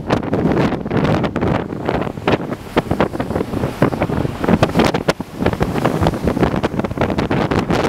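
Force 8 gale wind buffeting the microphone in uneven gusts, with sharp irregular blasts, over the rush of the rough sea on a ferry's open deck.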